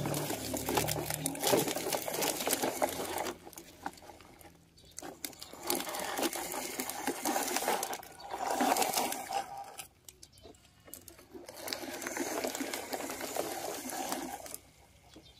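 Plastic toy trucks pushed by hand, their wheels rolling and scraping over gritty dirt in several runs of a few seconds each, with short pauses between.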